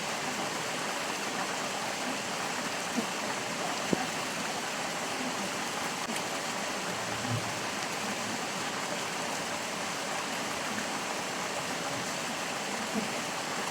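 Stream water flowing in a steady, even rush, with a few brief clicks, near 3, 4 and 13 seconds in.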